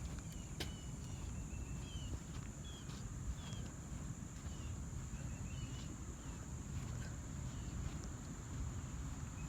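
Outdoor ambience: a steady high-pitched insect drone, with a bird chirping short notes about once a second, over a low rumble on the microphone.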